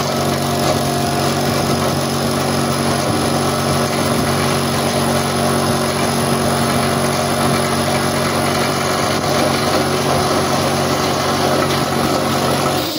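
Direct-drive piston air compressor running steadily, electric motor and pump with a constant hum, its cooling fan spinning with the shroud off. It is pumping again after its broken reed valve plate was replaced with one cut from a 0.25 mm feeler gauge.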